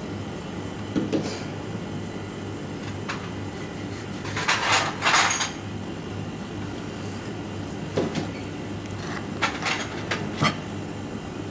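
Fish being filleted with a knife on a plastic cutting board: scattered light knocks and taps of the blade and the fish against the board, and a scraping rustle of about a second near the middle, which is the loudest sound, all over a steady low hum.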